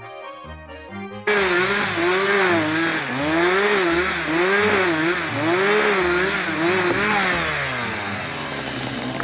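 Chainsaw cutting through a conifer log, starting loudly about a second in. Its pitch rises and dips over and over as the chain bites into the wood and bogs down, over background music.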